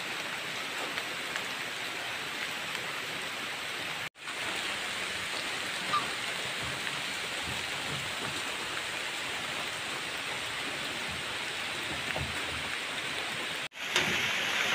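Heavy rain falling steadily, a dense even hiss. The sound drops out for an instant twice, about four seconds in and near the end.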